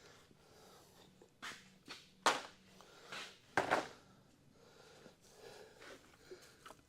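A few short knocks and clicks, about five in a couple of seconds, from hand tools and engine parts being handled.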